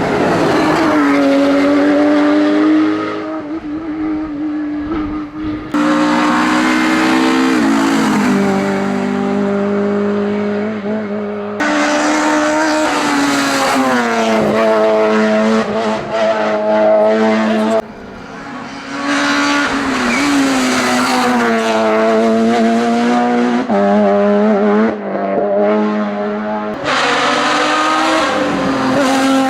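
Hillclimb race car engines at full throttle, revving up and dropping back through gear changes, in a run of separate passes joined by abrupt cuts about every six seconds.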